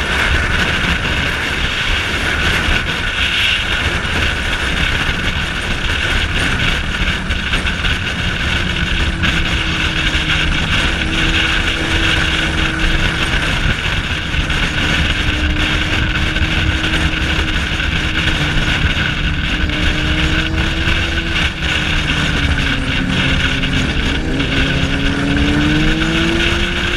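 Motorcycle riding at road speed: steady wind rush over the camera and road noise over the engine's running note, which drops and then rises again in the last few seconds.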